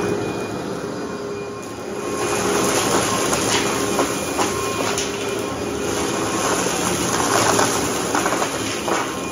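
Workhorse upright vacuum cleaner running with a steady drone and whine, with scattered crackles and rattles of debris being picked up.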